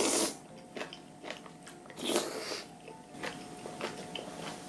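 Close-miked eating: a loud slurp as a spoonful of bean sprouts and noodles in spicy broth goes into the mouth, a second loud mouthful about two seconds in, and chewing with small wet clicks between.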